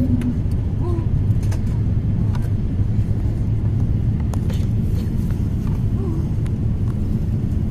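Steady low rumble of cabin noise inside an Airbus A350-900 airliner descending through cloud, with a few faint clicks.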